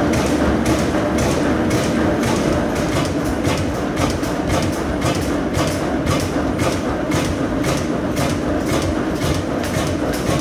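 Ronaldson & Tippett stationary oil engine running steadily: an even clatter about three times a second over a constant hum.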